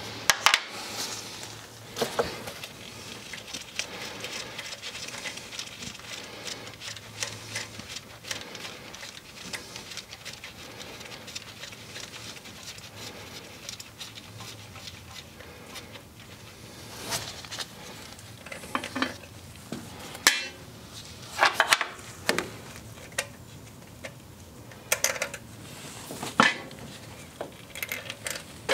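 Hand tools clinking and knocking on the carburetor and engine metal as the carburetor is unbolted: irregular sharp metallic clicks, louder and more frequent in the second half, some ringing briefly.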